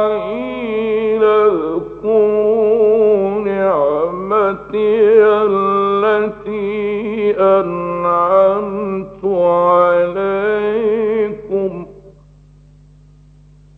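A male Quran reciter chanting in the ornamented, melismatic tajweed style, holding long notes and turning them with quick wavering runs, in phrases broken by short breaths. The chanting stops about twelve seconds in, leaving the steady low hum of an old radio recording.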